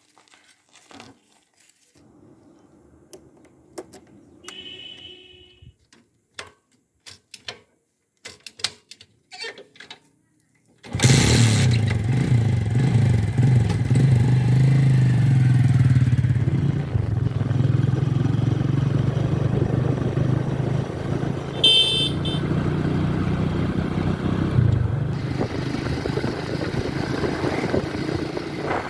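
A vehicle engine starts running abruptly about a third of the way in and keeps going steadily. A short high beep sounds about two-thirds of the way through. Before the engine starts there are only scattered faint clicks.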